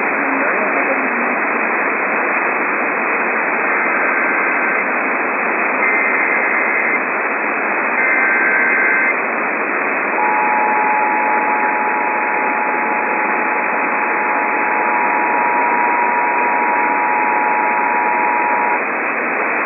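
Steady radio static hiss, over which an Emergency Alert System header plays: three short bursts of data tones about a second apart, then the EAS two-tone attention signal sounding steadily for about eight and a half seconds. Together they announce an incoming emergency alert.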